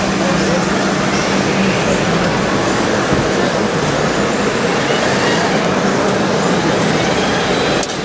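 Radio-controlled model CAT D8 bulldozer running steadily as it pushes soil, over a constant din with a low hum in the first couple of seconds.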